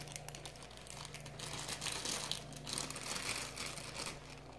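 Clear plastic bag crinkling and rustling as it is handled and lifted out of a packing box, an irregular crackle of small clicks.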